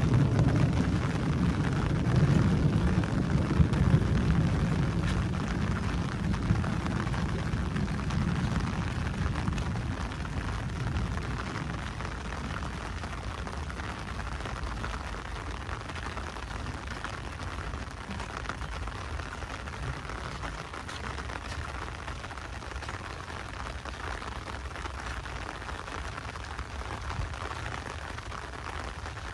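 A long rumble of thunder, loudest in the first few seconds and dying away over about ten seconds, over steady heavy rain.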